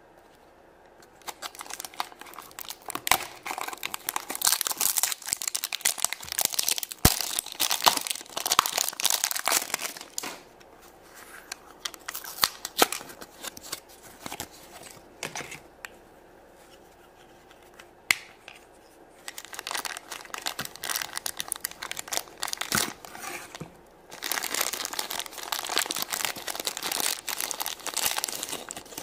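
Plastic toy packaging being torn open and crinkled by hand, in bursts of crackling with a quieter stretch in the middle. Near the end a foil blind bag is rustled and crinkled.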